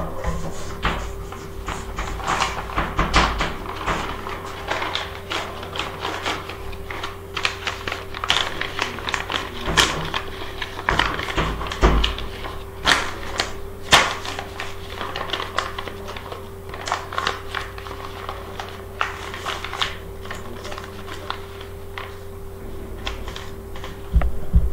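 Chalk on a blackboard while writing: irregular sharp taps and scratches as letters and a numeral are put down, over a steady hum.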